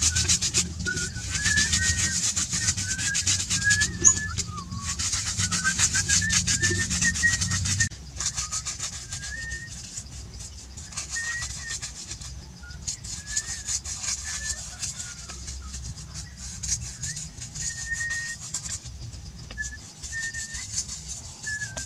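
Rapid scraping strokes on the pond's wall as it is brushed and smoothed, loud for the first eight seconds and then fainter. Forest birds chirp with short whistled notes throughout.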